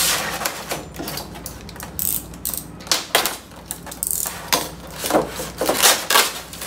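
Irregular clicks, rattles and plastic crinkling as small accessories in plastic bags are handled and taken out of a polystyrene foam packing tray.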